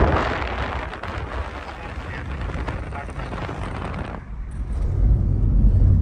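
Low rumble and wind noise from a moving vehicle, with a sudden change about four seconds in to a duller, bass-heavy rumble that grows louder near the end.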